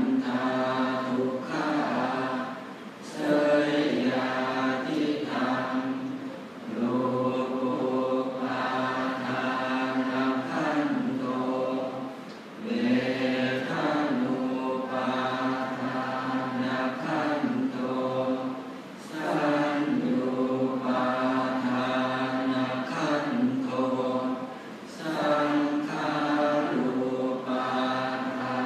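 Thai Buddhist monks' morning chanting (tham wat chao) in Pali: many voices reciting in unison on a near-steady pitch, in long phrases broken by short breath pauses every few seconds.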